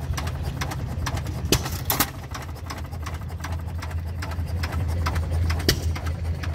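Antique stationary flywheel gas engine running: a steady low hum with rapid clicking, and a few louder sharp strikes.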